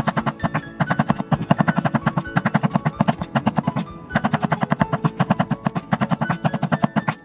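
Chinese cleaver chopping garlic cloves on a wooden cutting board: rapid, even knocks of the blade striking the board, about eight to ten a second, with a brief pause about four seconds in.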